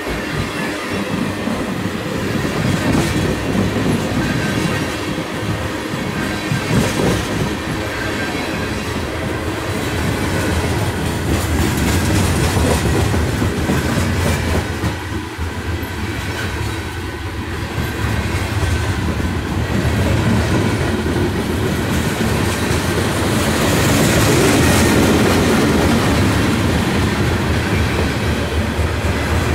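Freight train of tank cars and covered hoppers rolling past close by: a steady rumble of steel wheels with clicking over the rail joints, growing louder for a few seconds near the end.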